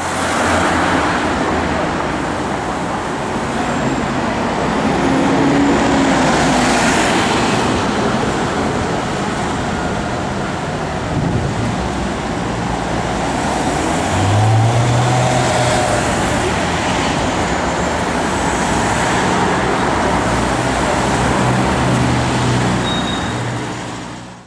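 Busy city street traffic: a steady wash of passing cars and engines, with one engine note rising briefly about halfway through and another engine tone standing out near the end, before the sound fades out.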